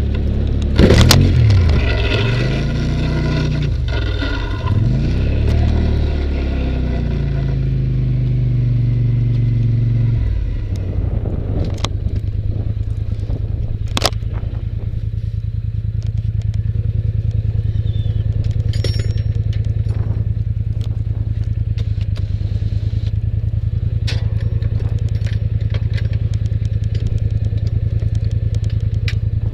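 Polaris Sportsman 850 ATV engine revving up and down for about the first ten seconds, with a sharp knock about a second in, then settling to a steady low idle with a few light clicks.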